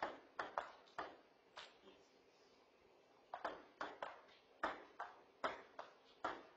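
Table tennis ball clicking off paddles and the table in a rally: sharp single ticks a few tenths of a second apart, a handful at first, then a pause of nearly two seconds, then a longer run of about nine. Picked up by a ceiling-mounted security camera's microphone.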